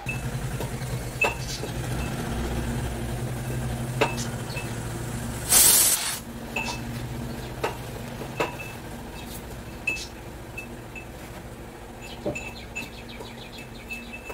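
Aluminium stovetop pressure cooker heating on a gas burner, over a steady low hum. Its metal ticks and clinks every second or two, with one short loud hiss about five and a half seconds in. Near the end the ticks speed up into a rattle as steam pressure builds toward the whistle.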